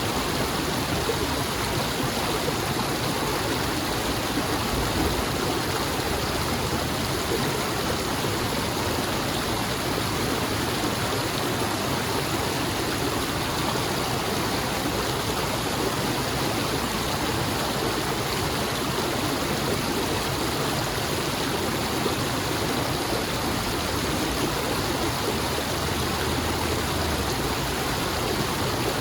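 A stream of water flowing and rushing steadily, with no change in level.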